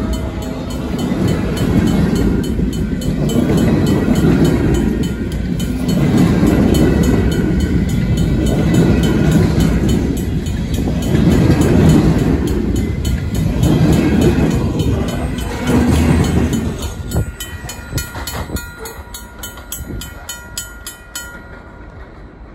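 Freight train of empty centerbeam flatcars rolling past a grade crossing: a low rumble that swells about every two seconds as the wheelsets pass. About three-quarters of the way through the rumble fades as the train draws away, leaving the crossing signal's Safetran mechanical bell ringing steadily until it stops near the end.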